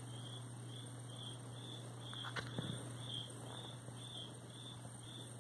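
High, even chirps repeating about twice a second, insect-like, over a steady low hum, with one sharp click about two and a half seconds in.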